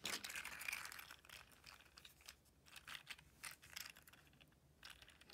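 Faint, irregular run of small plastic clicks and rattles from a 3D-printed articulated slug in silk PLA, its hinged segments knocking against each other as it is flexed and curled in the hands.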